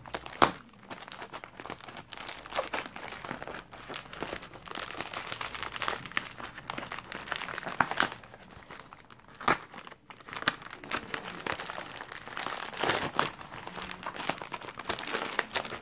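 Plastic parcel packaging and bubble wrap crinkling and rustling as it is pulled open by hand, with sharp crackles and occasional tearing.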